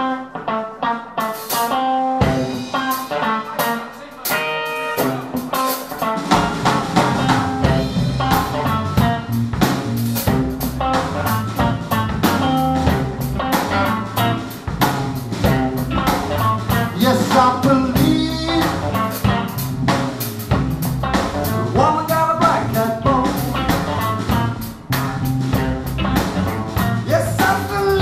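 Electric blues played live by a band of electric guitars and drums. The guitars open with a sparser figure, and the full band with drums comes in about six seconds in. A lead guitar then plays bending phrases over it.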